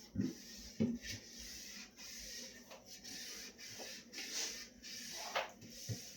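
Scrubbing a fridge's interior with a cloth or scrubber and a baking soda and lemon paste: repeated rubbing strokes about once a second, with two light knocks in the first second.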